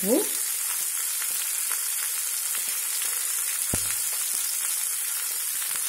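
Chopped onions and tempering spices sizzling in hot oil in a kadai: a steady frying hiss with small crackles, and a single knock a little past halfway.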